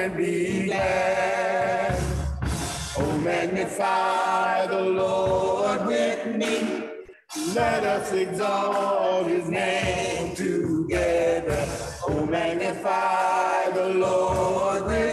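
A church praise team singing a worship song together, with a brief break about seven seconds in.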